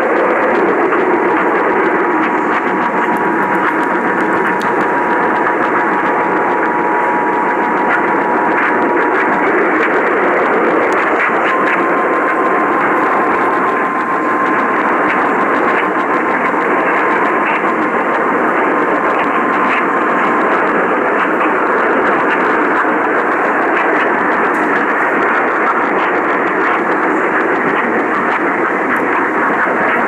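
Portable AM radio on a weak 1140 AM signal, giving loud, steady static hiss. Faint steady tones come through beneath it: a two-tone note from about one to nine seconds in, the Emergency Alert System attention signal, then a single tone from about eleven to twenty seconds in.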